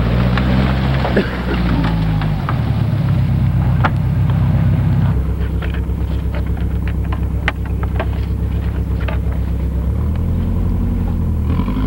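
A vehicle's engine running as a low, steady hum that steps in pitch about two and a half seconds in, again about five seconds in, and near the end, with scattered clicks and rattles over it.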